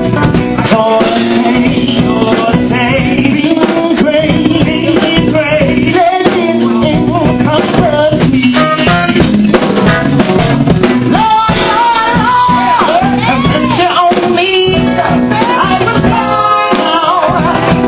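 Loud live band music: a lead vocalist singing into a microphone over a drum kit and the rest of the band.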